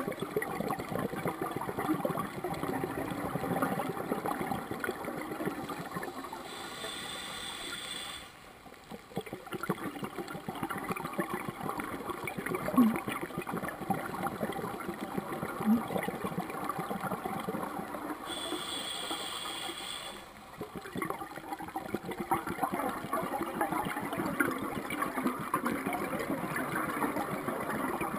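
Scuba diver's breathing heard underwater: long stretches of bubbling from the regulator's exhaled air, broken twice by the shorter, quieter hiss of an inhalation through the regulator, about a quarter of the way in and again about two-thirds in. Two small knocks sound in the middle.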